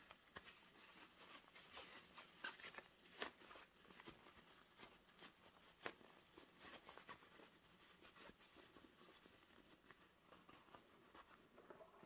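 Faint handling sounds of sewing work: scattered soft clicks and rustling, as fabric and small sewing tools are moved about.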